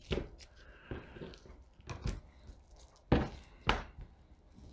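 Knife knocking against a plastic cutting board while a chicken thigh is deboned: a scattering of short, sharp knocks about a second apart, the loudest two close together about three seconds in.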